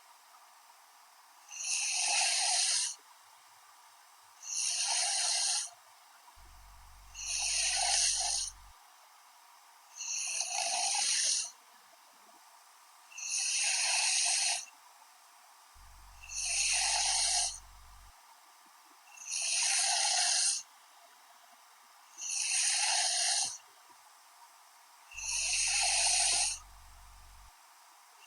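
A person snoring in a slow, even rhythm: nine snores, one about every three seconds, each lasting about a second and a half, with quiet between them.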